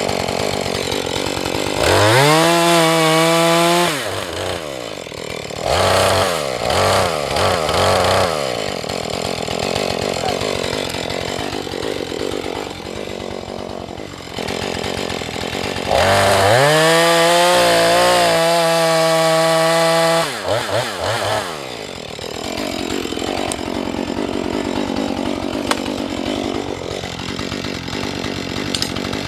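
Husqvarna 435 two-stroke chainsaw idling and revved up to full throttle several times: a rise to a high steady pitch about two seconds in, short blips around six to eight seconds, and a longer full-throttle run of about four seconds from sixteen seconds in. It drops back to idle in between.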